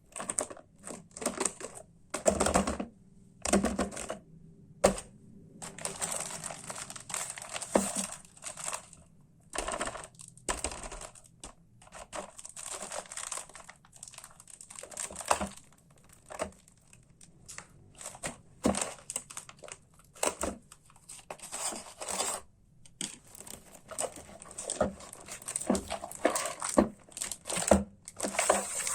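Toy packaging being unwrapped: plastic and paper crinkling and tearing in irregular bursts, with light knocks.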